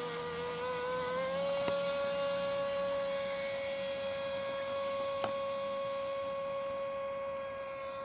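Electric motor of a DEERC radio-controlled boat whining steadily as it runs across the water. The pitch rises slightly about a second in and then holds. Two brief clicks come partway through.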